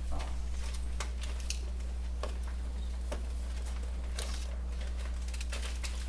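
Meeting-room tone: a steady low hum with scattered faint clicks and rustles of people shifting in their chairs and handling papers.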